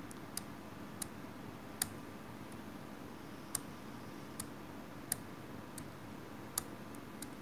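Faint, scattered small clicks, about ten of them at uneven intervals, over quiet steady room noise.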